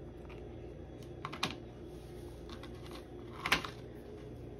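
Light clicks and taps of cookies and hands on plastic serving trays, a couple about a second and a half in and the loudest about three and a half seconds in, over a steady low hum.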